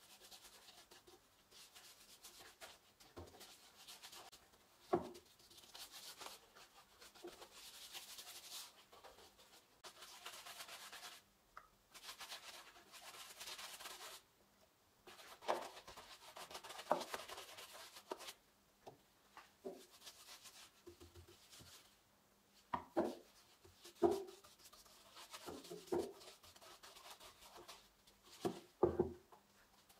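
Paintbrush strokes brushing a liquid finish onto the wooden boards inside a planter box, a faint swishing that comes in stretches of a second or two with short pauses between. Several sharp knocks are heard, most of them in the second half, as the brush and bucket touch the wood.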